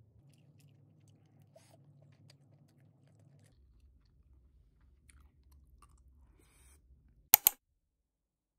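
Quiet eating sounds over a faint room hum: small clicks of a metal fork and spoon against a steel plate as spaghetti is twirled, with faint chewing. About seven seconds in come two loud, sharp clicks in quick succession.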